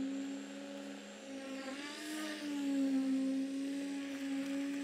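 Handheld concrete poker vibrator running with a steady high-pitched hum, its pitch wavering briefly about two seconds in as the poker is worked through the wet concrete to settle it and drive out air.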